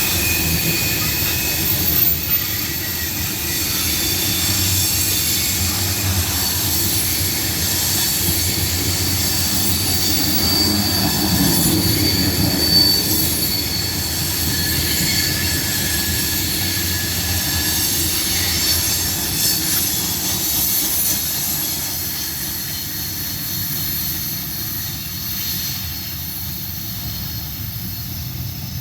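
Freight cars of a grain train rolling past, with a steady rumble of wheels on rail and high-pitched wheel squeals that come and go.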